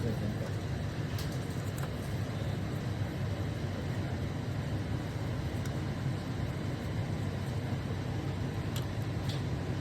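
Steady low machine hum, with a few faint light clicks about a second in and near the end.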